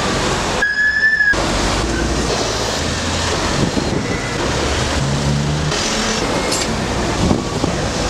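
Street traffic noise as double-decker buses pass close by: a steady rumble of diesel engines and tyres, with low engine hums rising and fading. About a second in, a brief steady high-pitched tone sounds while the rumble drops out.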